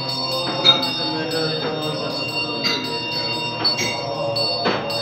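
Metal ritual bells in a Tibetan Buddhist monks' ceremony, ringing as they are struck about once a second, with their tones hanging on between strikes.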